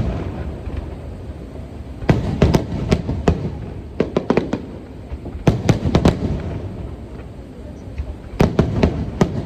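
Aerial fireworks shells bursting in quick clusters of sharp bangs, four volleys a second or two apart, over a low rumble from the display.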